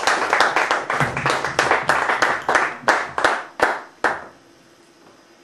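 Audience applause with distinct individual claps, thinning out and stopping about four seconds in, leaving a faint steady room hum.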